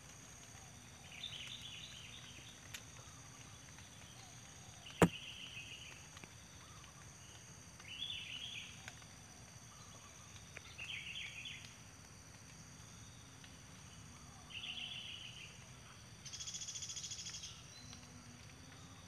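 Yellow-vented bulbuls calling at the nest: short high squeaky calls, five times, about three seconds apart, with a rapid evenly pulsed buzz near the end. A single sharp click about five seconds in is the loudest sound.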